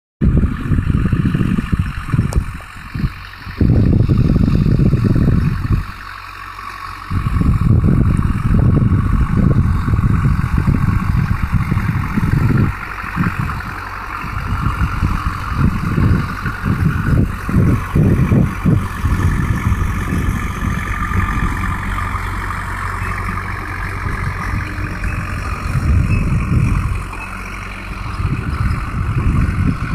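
Ursus C-360 tractor's four-cylinder diesel engine running steadily under load while it pulls a cultivator across a ploughed field. Gusts of wind rumble heavily on the microphone, coming and going, with lulls about six seconds in and near the end.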